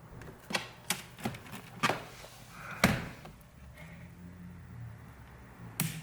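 Pry tool working under a laptop screen's plastic trim: a handful of sharp clicks and snaps at uneven intervals, the loudest about three seconds in, as the trim's plastic tabs are forced.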